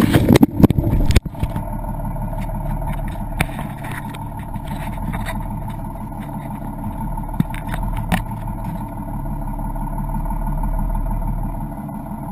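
Hands bumping and rubbing the camera housing for about the first second, then a boat's engine running steadily with a low, even drone and an occasional faint click.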